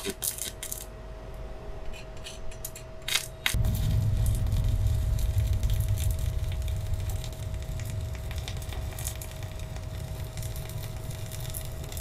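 Stick (arc) welding with a mini inverter welder set to about 100 amps on a 2.5 mm rod: the arc crackles and sputters. Scattered sharp crackles come first, then at about three and a half seconds it settles into a denser, steady crackling sizzle.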